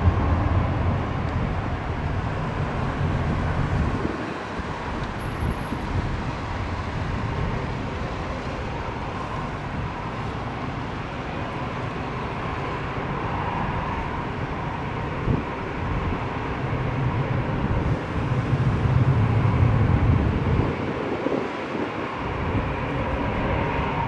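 Airbus A320's twin jet engines at takeoff thrust: a steady roar with a deep rumble that swells and ebbs as the airliner lifts off and climbs away.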